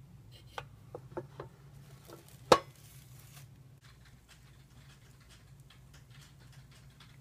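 Round waffle maker's lid being shut: a few light clicks, then a single sharp clunk about two and a half seconds in as it closes. Faint scattered ticking follows over a steady low hum.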